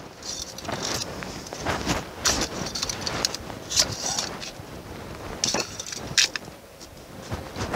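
Hands turning a new spin-on oil filter onto a tractor engine: irregular rustling and scraping with a few sharp clicks.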